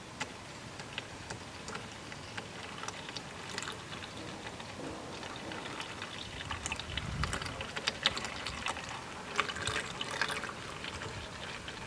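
Warm engine oil draining from the Kohler engine's oil drain and pouring into a bucket: a steady trickle with many small splashes and drips.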